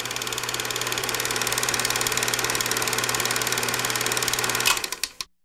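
Movie projector running: a fast, even clatter over a steady hum. There is a sharp click near the end, then the sound cuts off.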